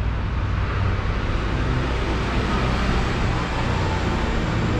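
Street traffic noise: a steady low rumble of road vehicles.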